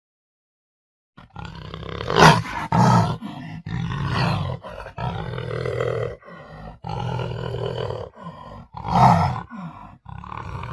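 Panther growling and roaring in a series of rough, throaty calls, starting about a second in, with the loudest roars at about two seconds, three seconds and nine seconds.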